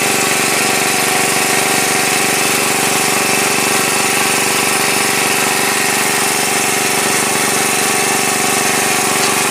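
Small engine running steadily at constant speed, typical of the portable petrol water pump used to drain a ditch.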